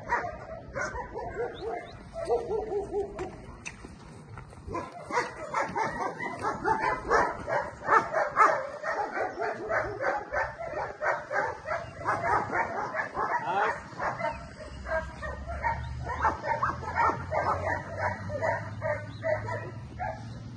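German Shepherd guard-barking at a protection-training helper. A few scattered barks come first, then from about five seconds in a rapid, steady run of barks, about three a second.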